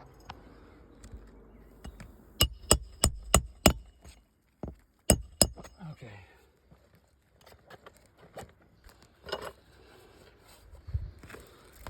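Sharp metallic taps with a ringing edge: five in quick succession, about three a second, then two more about a second and a half later, with softer scattered clicks afterwards.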